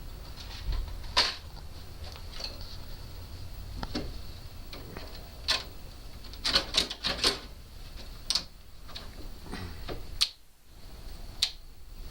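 Irregular sharp clicks and metal clinks, with a quick run of them about two-thirds of the way through: door-lock hardware and tools being handled while a new door lock is fitted.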